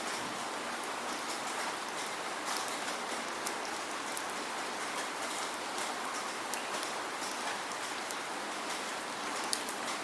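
Steady rain falling without thunder, an even hiss with many small sharp drop ticks scattered through it.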